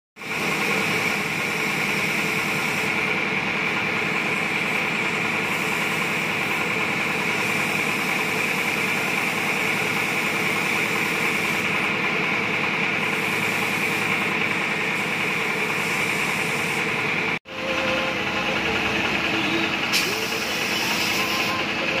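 Tyre-shop compressed-air equipment running: a steady machine hum with an even hiss of air. It cuts out abruptly for an instant about three-quarters of the way through, then carries on.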